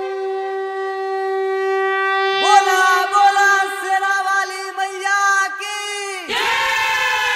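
Conch shell (shankh) blown in long held blasts: a steady note first, then from about two and a half seconds a second blast that wavers in pitch and drops away sharply about six seconds in, followed by another held blast.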